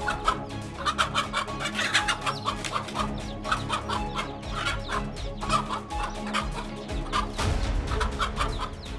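Mother hen giving rapid, repeated alarm clucks and squawks as she defends her chicks against a cobra, over background music.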